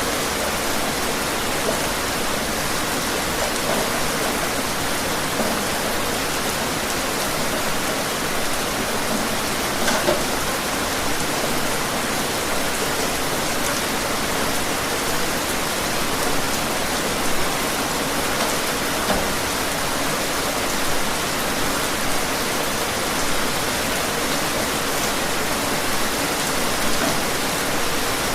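Steady rain falling, an even hiss with scattered louder drops landing on a surface.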